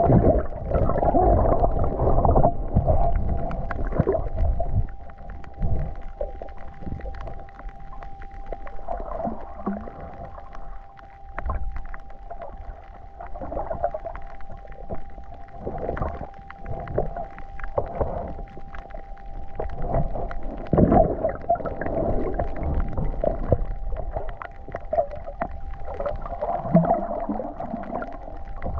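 Water sloshing and gurgling close to the microphone in irregular swells, with a few knocks and a faint steady whine held throughout.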